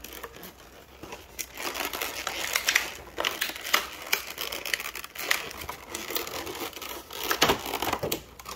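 Clear plastic packaging from a Pokémon card collection box being handled and pulled apart, crinkling and crackling in an irregular run, with a louder crackle near the end.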